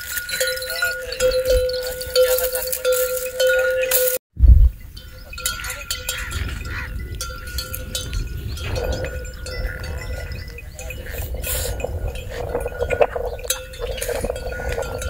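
Bells on a flock of sheep and goats clinking irregularly as the animals shift about in their pen. About four seconds in the sound breaks off for a moment and comes back with a loud knock.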